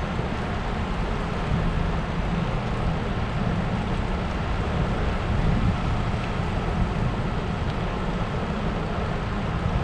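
Steady wind rush and low rumble on the microphone of a camera moving along on a bicycle.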